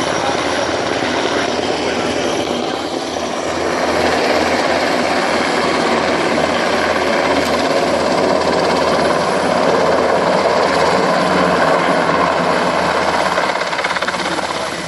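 Military helicopters running, a steady loud rotor and turbine noise with a fast low beat from the rotor blades.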